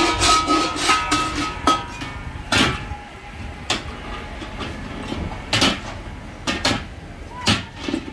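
A metal ladle clanking and scraping against large steel karahi woks, a string of sharp metal knocks, the loudest coming about once a second in the second half.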